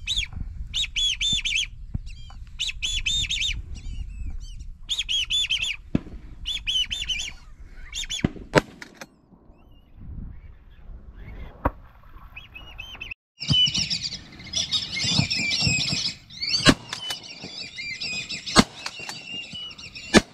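Whistling ducks calling: repeated bursts of high, arched whistles, then a denser chorus of many birds calling together from about two-thirds of the way in. Two sharp knocks sound near the end.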